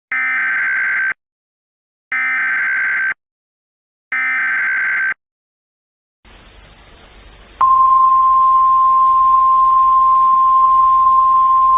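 Emergency Alert System header: three one-second bursts of shrill digital data tones, a second apart. Then a faint static hiss comes in, and about seven and a half seconds in a single steady attention tone starts and holds over the static.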